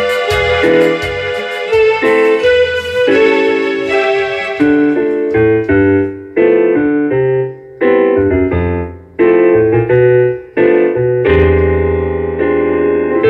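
Electronic keyboards playing a melody over chords in an electric-piano sound, with bass notes underneath. The playing breaks off briefly between phrases several times, around the middle.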